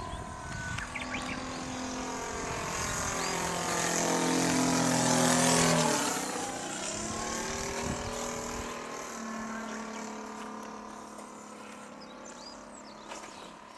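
Saito FG-40 single-cylinder four-stroke gasoline engine and propeller of a 2450 mm Super Decathlon RC model airplane flying past: the engine note grows louder to a peak about six seconds in, drops in pitch as the plane passes, then fades away.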